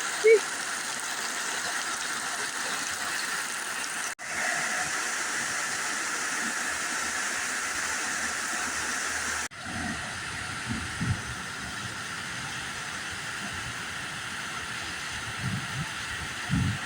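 Steady hiss of rain falling, broken by sudden cuts about four and nine and a half seconds in. After the second cut the rain is slightly quieter and a few short low thumps come through.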